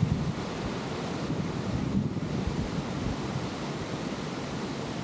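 Wind rushing over the microphone: a steady hiss with a gusty low rumble.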